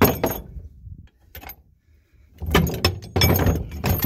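Steel safety chains and their hooks rattling and clinking against a pickup's bed: a short clatter at the start, a pause, then a longer run of jangling in the second half.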